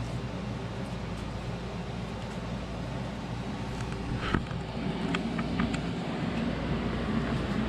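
Honeywell MM14CCS 14,000 BTU portable air conditioner running just after start-up, a steady hum. A sharp click comes a little past halfway, after which it runs slightly louder.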